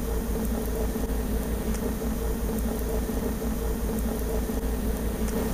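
Wood-fired gasifier boiler running: a steady mechanical hum over a low rumble, with a few faint crackles from the wood burning in the firebox.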